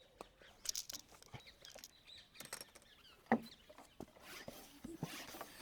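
Hands working a bicycle tyre and tube onto the wheel rim: scattered light clicks and rubber rubbing, with one sharper knock a little over three seconds in.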